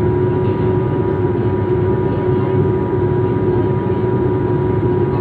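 Airliner cabin noise: a steady, loud drone of engines and airflow with a constant hum of steady tones over it.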